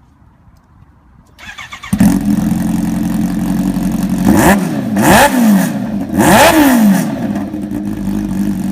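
Kawasaki Ninja H2's supercharged inline-four being started: a brief crank about a second and a half in, catching to a loud idle, then three quick revs that rise and fall in pitch before it settles back to idle.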